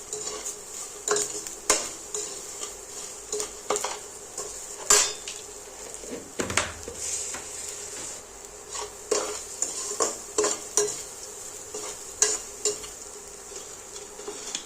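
A metal spoon stirring and scraping a soybean snack in a frying pan, with irregular knocks against the pan over a steady sizzle of frying.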